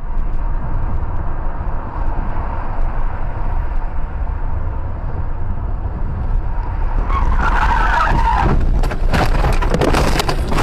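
Road noise inside a moving car. About seven seconds in, tyres squeal under hard braking, followed by a crash: a series of loud impacts near the end.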